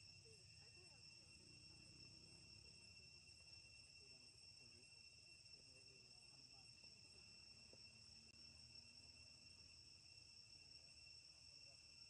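Faint, steady high-pitched insect drone of crickets, unbroken throughout, over a low rumble.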